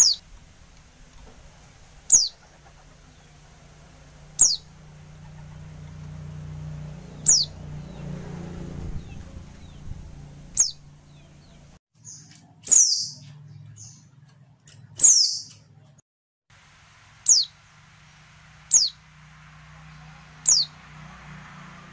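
Female white-eye (pleci) giving short, high calls, each sliding quickly downward. They come about one every two seconds, eleven or so in all, with two louder, fuller calls near the middle.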